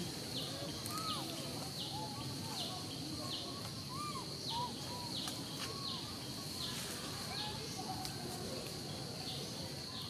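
Outdoor ambience: a steady, high insect buzz that dips in pitch at an even pulse about one and a half times a second, with short chirping calls scattered through it.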